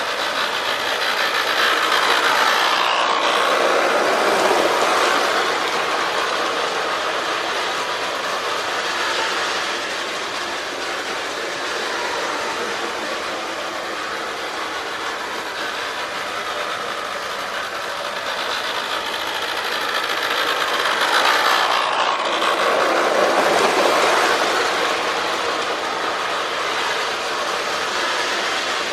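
Marx 1998 toy diesel locomotive running on track with its diesel roar unit, a continuous rattling drone like a rattly old Alco. It grows louder twice, a few seconds in and again about twenty seconds later, as the engine comes close.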